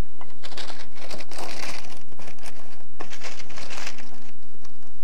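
Baking paper lining a square cake tin crinkling and rustling as it is brushed with oil, in irregular scrapes and crackles.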